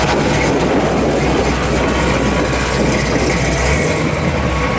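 1987 Chevrolet Monte Carlo SS's V8 engine running loud and rough at low speed as the car rolls past and pulls away. Its low drone fades near the end as it moves off.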